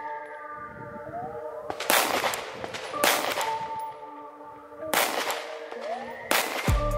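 Sig Sauer P320 Compact pistol fired four times, single shots spaced about one and a half seconds apart, over background music.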